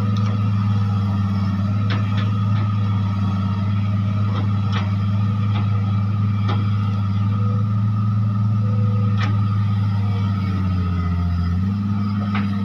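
Diesel engine of a Hitachi log-grapple excavator running steadily under hydraulic load, its pitch sagging about ten seconds in and then recovering as the machine strains to lift heavy logs. Sharp knocks come every second or two.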